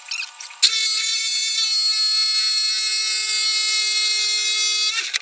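Electric saber saw (jigsaw) motor running with a steady high whine for about four seconds, cutting through a clamped sheet; it starts abruptly less than a second in and cuts off near the end.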